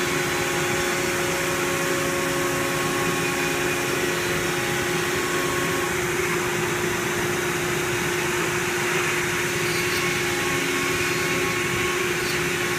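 Gerber Sabre CNC router's spindle running steadily while its bit cuts a circle into a sheet of board, together with the rushing of the dust-extraction hose at the cutting head. It holds a steady hum with a few fixed tones and does not rise or fall.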